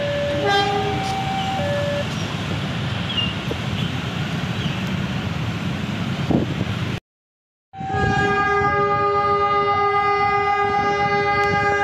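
Level-crossing warning alarm sounding two alternating tones, swapping about once a second, over the low rumble of idling motorcycles. After a brief break about seven seconds in, a long, steady locomotive horn sounds together with the alarm.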